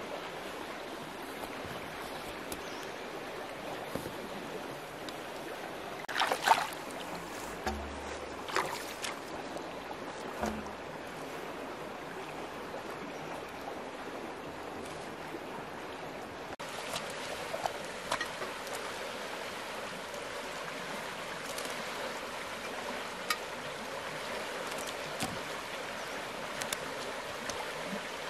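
Steady rush of running water, with a few short splashes or knocks between about six and ten seconds in.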